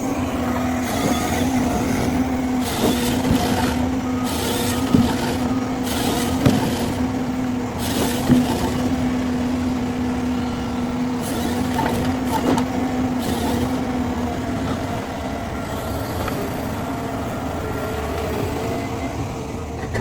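Heavy forestry machine's engine running under load with a steady whine that stops about two-thirds of the way through, scattered knocks, and a reversing alarm beeping faintly now and then.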